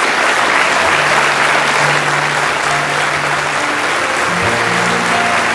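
Audience applauding steadily, with soft music of slow, held low notes coming in about a second in.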